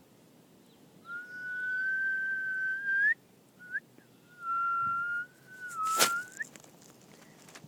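A person whistling: a long held note that slides up at the end, a short note, then a second long held note that also ends in an upward slide. There is a sharp click near the end.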